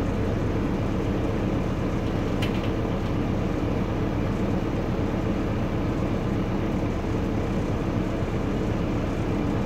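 Otokar Doruk 190H city bus's Deutz turbo diesel engine idling steadily, heard from inside the passenger cabin, with one brief click about two and a half seconds in.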